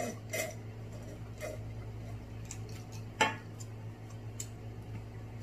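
Snow crab leg shells clicking and cracking as they are broken and picked apart by hand: a handful of short sharp clicks, the loudest a little past three seconds in, over a steady low hum.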